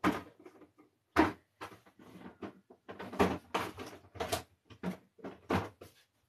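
Plastic paint bottles knocking and clattering as they are rummaged through and picked out: a knock at the start and another about a second in, then a quicker run of knocks.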